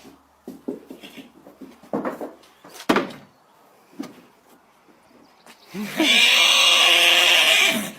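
A horse's loud, harsh call, about two seconds long near the end, opening with a rising pitch and then held steady and raspy. It comes after a few light knocks and rustles.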